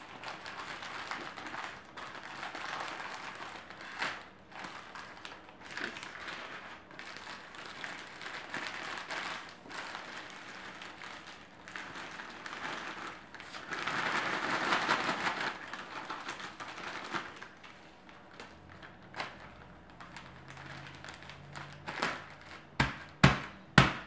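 Crinkling and rustling of a foil cracker sleeve and a plastic bag as crackers are unwrapped and put into the bag, with small clicks throughout. It ends with a few sharp knocks as the bag is pressed and slapped on the countertop.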